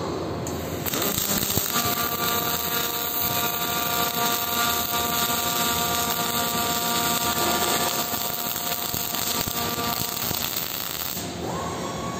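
MIG (gas metal arc) welding arc crackling and sizzling steadily as a bead is run on steel, starting about a second in and stopping near the end. A steady high whine from shop machinery comes in as the arc stops.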